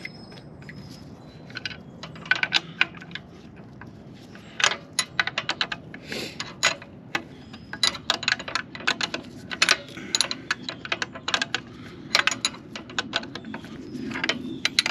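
Metal clicks and clinks of a hand wrench working a bolt loose on the exhaust pipe's mounting bracket, in quick irregular runs with short pauses.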